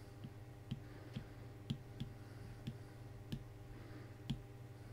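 Light, irregularly spaced clicks of a stylus tapping down on a writing tablet as handwritten figures are drawn, about eight in all, over a faint steady hum.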